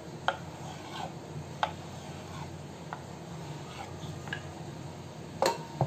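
Kitchen knife cutting a sheet of rolled dough into strips on a wooden rolling board, the blade meeting the wood with a light click about every second and a quarter, then a louder knock near the end.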